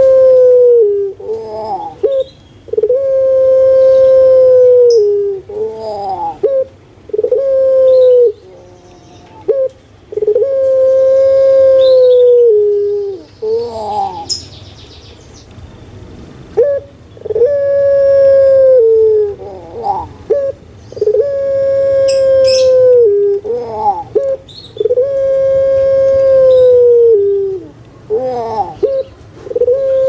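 Puter pelung, a song-bred domestic collared dove (Streptopelia risoria), cooing over and over: each long, level coo drops in pitch at its end and is led in by short rising notes, with a pause of a few seconds about halfway through.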